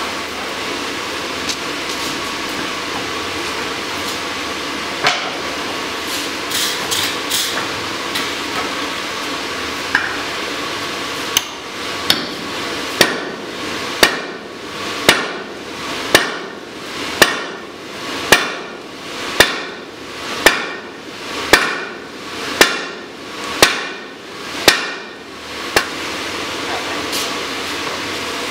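Hand hammer blows on a hot drift, driving it through a red-hot workpiece to open the hardy hole of a striking anvil. After a few light clinks, about fifteen strikes come at roughly one a second, each ringing briefly, then stop near the end. Underneath is the steady rushing of the forge blower.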